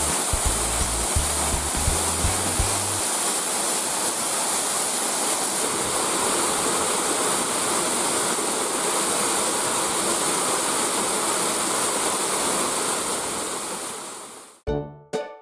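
Falling water from a small waterfall, a steady even rush that fades out shortly before the end. Background music's low notes run under it for the first few seconds, and bright plucked music begins just before the end.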